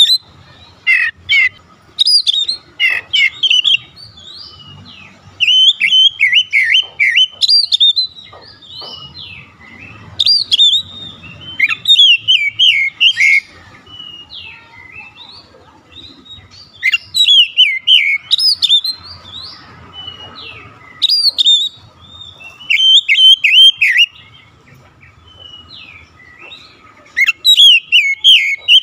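Oriental magpie-robin singing loud, rapid phrases of varied whistles and chirps. The phrases come in bursts of one to three seconds, with short pauses between them.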